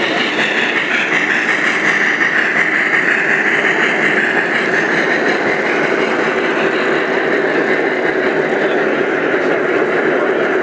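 Lionel O gauge model trains running on three-rail track, giving a steady rumble of wheels and motors as a steam locomotive and its train pass close by.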